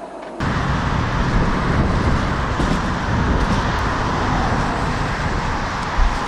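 Steady road traffic noise on a busy street, heard from a moving bicycle, with a low uneven rumble throughout. It starts abruptly about half a second in.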